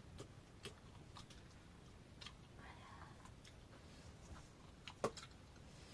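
Near silence with a few faint, scattered clicks, the sharpest one about five seconds in.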